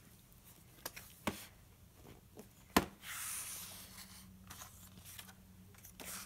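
A hardcover picture book being opened and its pages handled: a few soft taps, a sharper knock nearly three seconds in, then a second or so of paper rustling and sliding under a hand.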